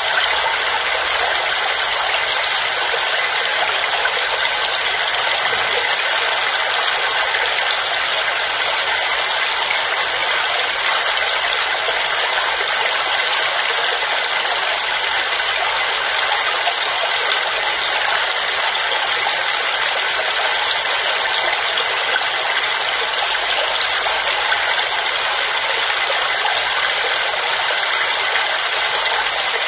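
Waterfall: the steady rush of falling water, an even hiss with little deep rumble and no breaks or changes.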